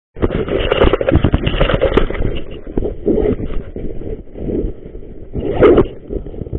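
Camera handling noise: rubbing and knocking on the action camera's body and microphone as it is handled, loud and irregular, with a heavier bump about five and a half seconds in.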